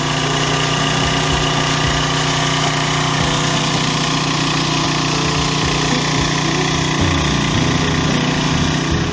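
Pressure washer running steadily: the even drone of its small engine under the hiss of the water jet.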